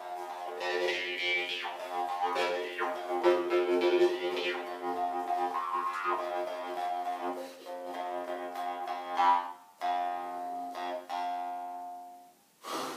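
Jaw harp twanging one steady drone note, with the bright overtones above it shifting as it is played. It breaks off briefly about three quarters through and stops near the end.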